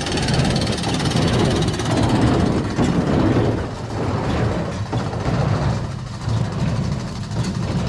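Ford 4000 tractor engine running steadily.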